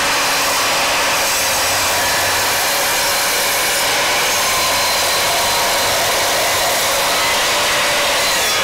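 Evolution R255SMS 10-inch sliding miter saw's 15-amp motor running at full speed, loud and steady, as its 24-tooth multi-material carbide blade is lowered through a pine board.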